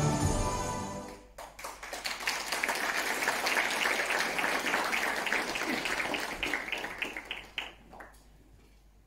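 Background music fading out in the first second, then an audience applauding, thinning to a few last claps and stopping about eight seconds in.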